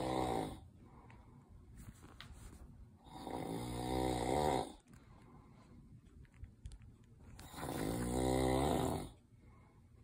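Loud, drawn-out pitched snores, one about every four seconds, each swelling over a second or more before breaking off. The snoring sounds like a demon.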